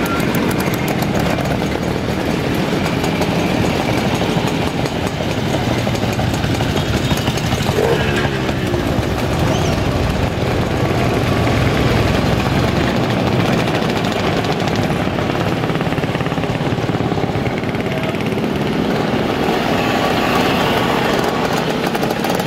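Many vintage motorcycle engines running together as a procession of old motorcycles and scooters rides past one after another, forming a steady, unbroken mix of engine noise.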